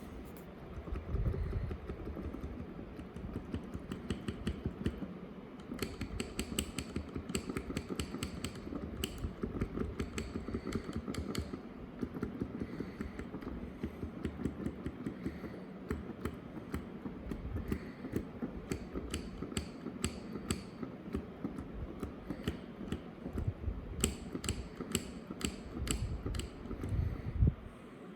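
Black keys of a Casio PX-S1000 digital piano clicking as they are pressed: runs of sharp mechanical clicks with soft low thumps, and no piano tone heard. The owner wonders whether this much key noise is normal on a brand-new instrument or a fault needing replacement.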